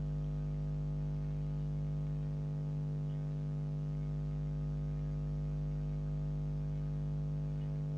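Steady electrical hum with a stack of evenly spaced overtones, unchanging throughout.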